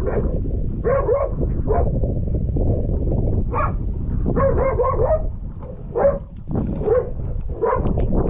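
A dog barking repeatedly, short barks about once a second with a quick cluster around the middle, over steady low rumbling noise.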